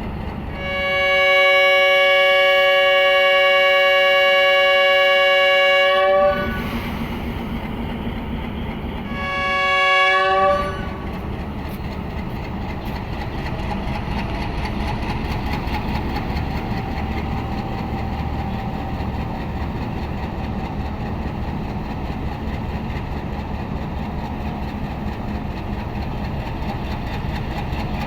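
HBU-20 diesel-electric locomotive's air horn sounding a chord: one long blast of about five and a half seconds, then a shorter blast a few seconds later, each rising slightly in pitch as it ends. This is the warning before the train departs. After the blasts, the idling locomotive keeps up a steady low rumble.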